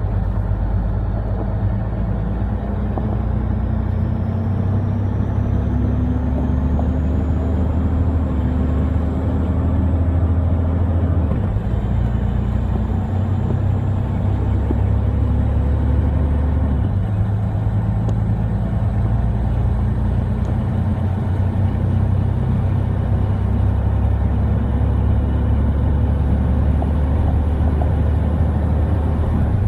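Truck engine and road noise heard inside the cab while driving at speed, a steady low drone. The engine note climbs slowly and drops back twice, about eleven and seventeen seconds in, as the truck shifts up.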